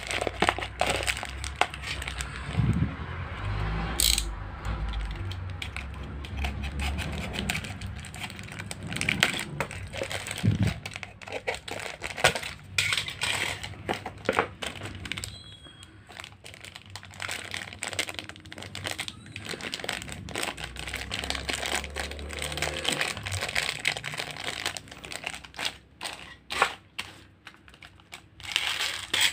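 Clear plastic packets crinkling and rustling as they are handled, with many short clicks and taps of the hard plastic parts inside and some low handling bumps.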